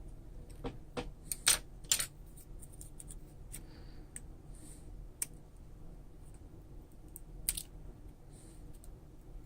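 Small hard clicks and taps of hand tools on the parts of an iPhone 5s under repair: about four sharp clicks close together in the first two seconds, a few fainter taps, and another sharp click near the end.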